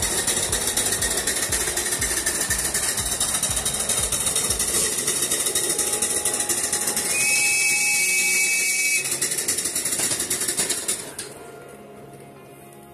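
Ride-on live steam garden-railway locomotive running, with a steady hiss of steam and a rapid clatter. Past the middle a whistle sounds for about two seconds, then about eleven seconds in the noise drops away under music.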